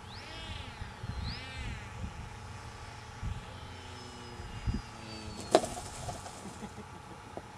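Foamaroo foam flying-wing model plane coming in to land: a faint high whine easing slightly lower, then a single sharp thump with a short rustle as it touches down in the grass about five and a half seconds in. Wind buffets the microphone, and two short rising-then-falling chirps sound near the start.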